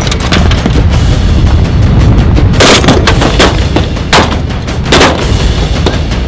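Battle gunfire: bursts of machine-gun fire and scattered rifle shots, the heaviest clusters about two and a half to three seconds in and again near five seconds, over music with a low rumble underneath.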